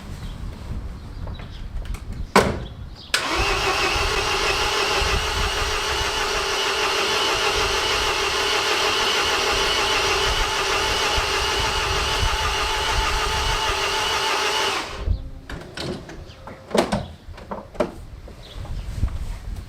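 MINI R56's 1.6 HDi DV6 diesel engine cranking on the starter motor without firing: a steady whir that starts about three seconds in, holds an even pitch for about twelve seconds and then cuts off, the engine refusing to start. Short clicks and knocks come before and after it.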